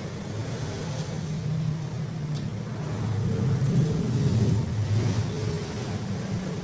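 Low engine rumble of a road vehicle, swelling about halfway through and then easing off, as if it passes by.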